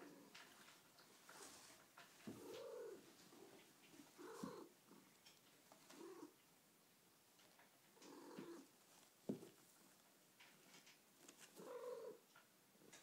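A domestic cat making short, faint, low calls, each rising and falling in pitch, about every two seconds. A single soft tap comes about two-thirds of the way through.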